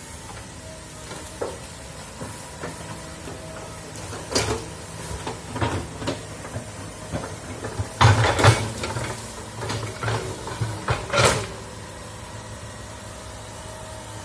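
Excavator engine running steadily while the machine works, with a string of irregular metallic clanks and knocks, loudest about two-thirds of the way in and again shortly after.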